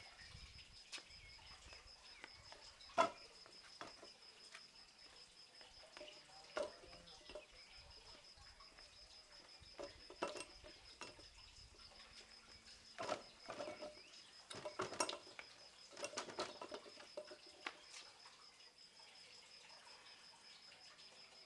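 Faint, scattered knocks and taps of forearms and hands striking the wooden posts of a Wing Chun three-pole training dummy (Saam Sing Jong), coming more thickly in the second half. A steady high whine runs underneath.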